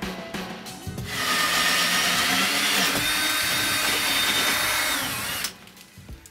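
Cordless drill boring a hole through a wooden 2x4 stud. The motor starts about a second in and runs steadily for about four seconds, with a whine that drops as the drill stops near the end.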